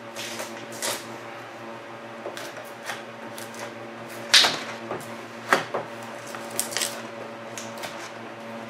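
Plastic squeegee rubbing and scraping over a vinyl door decal and its peeling backing paper, in short irregular strokes with the loudest scrape about halfway through, over a steady low electrical hum.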